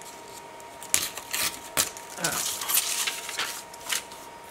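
Paper and card being handled on a cutting mat: rustling, with a few sharp taps and clicks starting about a second in.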